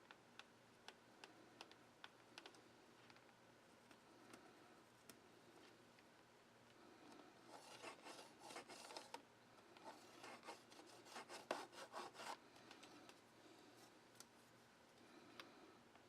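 Faint scraping of a hand tool worked against a leather part: light scattered ticks at first, then two runs of quick back-and-forth strokes, about five a second, starting about halfway through.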